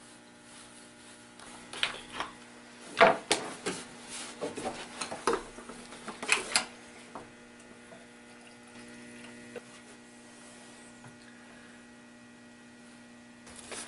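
Steady electrical mains hum, with a cluster of clicks and knocks from metal parts of a Stihl chainsaw and its clamp-on mini chainsaw mill bracket being handled. The sharpest knocks come about three seconds in and again about six and a half seconds in.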